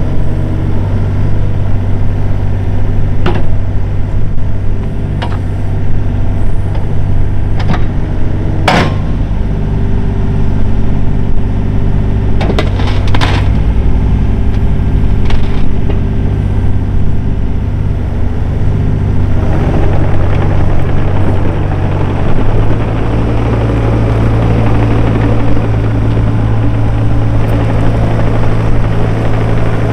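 Case CX36B mini excavator's 28 hp Yanmar diesel engine running steadily while the machine works, with a handful of sharp metallic clanks in the first half. About two-thirds of the way through, the engine note shifts and the sound grows noisier and rougher.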